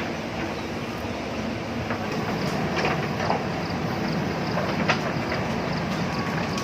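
JCB backhoe loader's diesel engine running steadily while it works, with several sharp knocks scattered through, and a faint quick ticking from about two seconds in.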